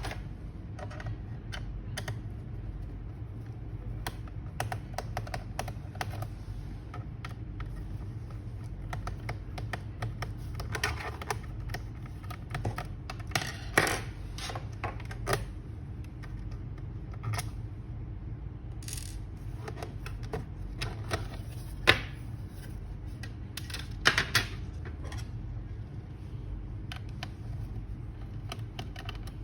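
Irregular small clicks, taps and rattles of a laptop and its small parts being handled during repair work, over a steady low hum, with a few sharper knocks around the middle and later on.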